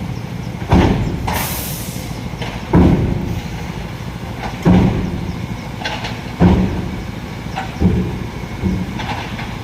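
A heavy diesel tipper truck's engine running under a series of loud clanks roughly every one and a half to two seconds, each dying away, with a short burst of air hiss about a second and a half in.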